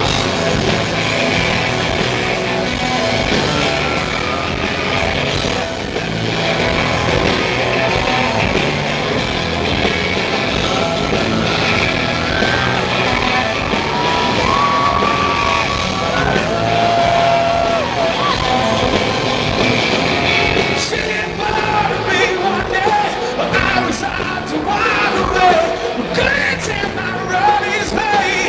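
Live rock band playing: electric guitars and drums at a steady beat, with a voice singing that comes through more in the later part.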